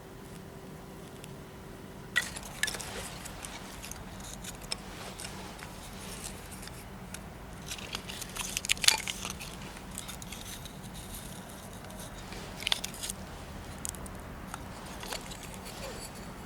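Small objects being handled: scattered clicks, clinks and rustles, busiest about eight to nine seconds in, over a faint steady low hum.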